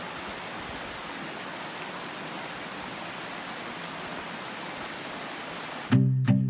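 Creek water running over rock slabs, a steady rushing hiss. About six seconds in, plucked guitar music starts.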